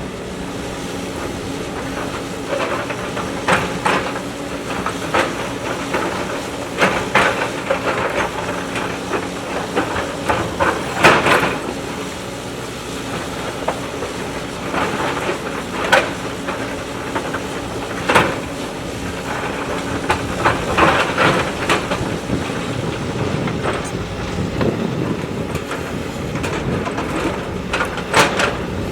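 JCB backhoe loader's diesel engine running steadily, with repeated sharp metallic clanks and knocks from the bucket and arm as it works.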